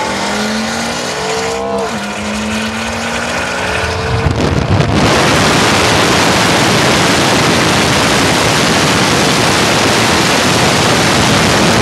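V8 engine accelerating hard at full throttle, its pitch rising with a quick upshift about two seconds in. From about four and a half seconds a loud, steady rush of wind buffeting the microphone at speed drowns the engine.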